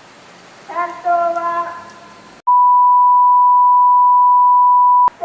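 A loud, steady, high-pitched censor bleep, a single pure tone that switches on abruptly about two and a half seconds in, holds for about two and a half seconds and cuts off sharply. Before it, a child's voice announces over an outdoor public-address loudspeaker.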